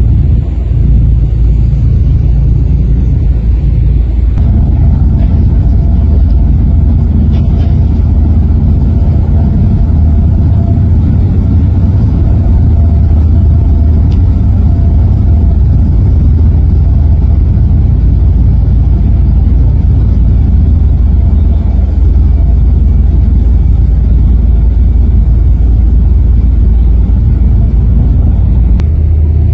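Loud, steady low rumble of a ferry under way, heard on board: the ship's engines and hull running at cruising speed, with a faint steady whine added from about four seconds in.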